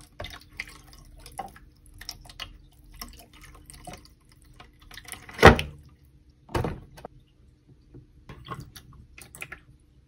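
Water poured from a plastic measuring jug into a plastic toy box, trickling and dripping, mixed with plastic toy pieces being handled. Two louder sudden sounds come about halfway through.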